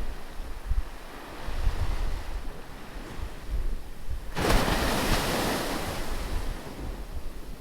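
Ocean surf. A wave crashes suddenly a little over halfway through, and its hissing wash fades away over the next couple of seconds. Wind rumbles on the microphone underneath.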